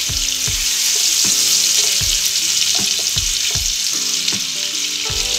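Prawns sizzling steadily in hot mustard oil in a nonstick wok as they fry to a light brown, with soft, irregular knocks of a spatula stirring them against the pan.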